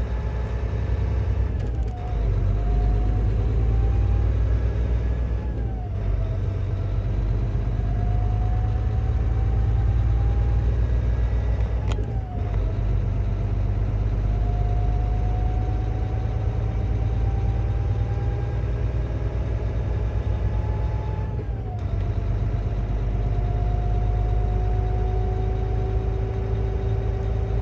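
Semi-truck diesel engine pulling away and shifting up through the gears. Its pitch climbs slowly and falls back sharply four times, about 2, 6, 12 and 22 seconds in, over a steady low rumble.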